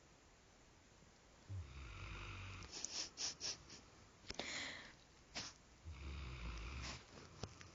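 A sleeping puppy snoring: two low rumbling snores, each about a second long, about a second and a half in and again about six seconds in, with short sharp sniffing noises between them.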